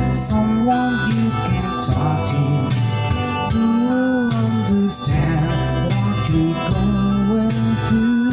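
A man singing karaoke into a microphone over an amplified backing track with guitar and a steady beat.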